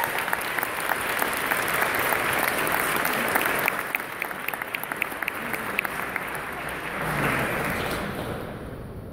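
An audience applauding steadily. From about three and a half seconds in, one nearby person's claps stand out at about five a second. The applause thins out near the end.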